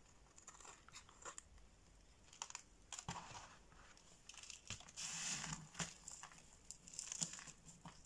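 A knife blade cutting into a bar of soap, with soft scattered crackles and scrapes, then dry soap shavings crunching and crinkling under the hands in a denser run about five seconds in.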